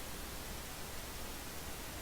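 Steady hiss with a low hum underneath: background noise of the recording, with the SDR receiver's audio muted.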